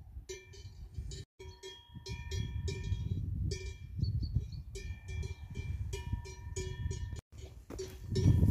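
Cowbells on grazing cattle clanking irregularly, a few quick strikes at a time, over a low rumbling noise that is loudest near the end.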